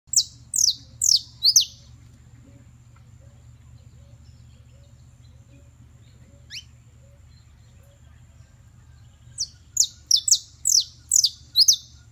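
Caged saffron finch (canario criollo) singing in short bursts of sharp, downward-sweeping whistled notes: four in quick succession at the start, a single fainter note about halfway, and a quick run of about seven near the end.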